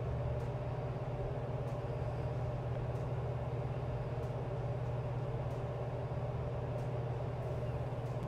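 A steady low machine hum with faint ticks about every second and a quarter.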